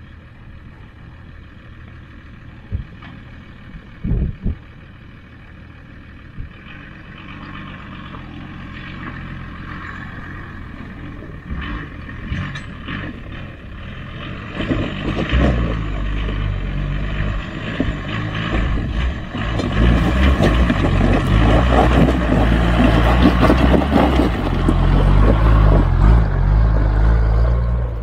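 Off-road 4x4 vehicle's engine running and the vehicle moving, getting much louder from about halfway through, with a couple of sharp knocks about three and four seconds in.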